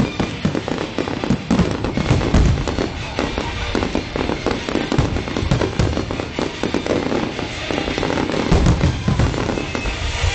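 Fireworks display going off: a dense run of bangs and crackling bursts, with deep booms about two seconds in and again near the end, picked up on a phone's microphone.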